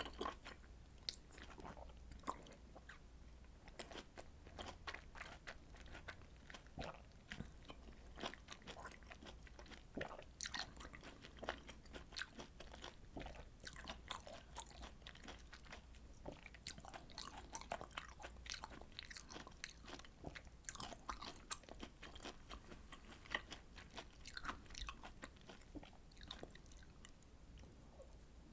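Close-miked chewing and biting of juicy citrus fruit segments: a dense, irregular run of small wet clicks and smacks, over a low steady hum.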